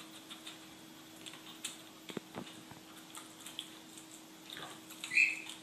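A dog eating from a bowl on the floor: faint scattered clicks and chewing sounds. About five seconds in, a parrot, a Senegal parrot, gives one short, louder high-pitched call.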